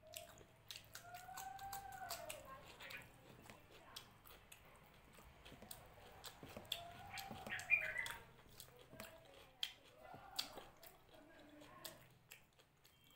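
Close-up eating sounds: chewing and wet mouth clicks and smacks from someone eating fried rice and cucumber by hand. Twice, about a second in and again around seven seconds, a drawn-out whiny pitched sound rises and falls.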